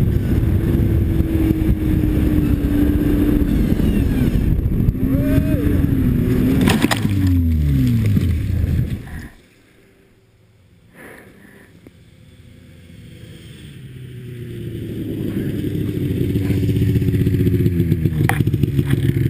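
Snowmobile engine running under the rider with its pitch rising and falling as the throttle works, then sliding down and cutting off abruptly about nine seconds in as the sled goes down. After a few quiet seconds a second snowmobile, a Polaris XCR, is heard approaching, its engine growing steadily louder.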